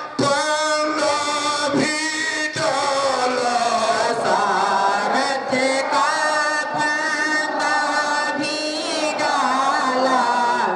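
Devotional chanting sung through a PA system: short phrases at first, then long held, slightly wavering notes.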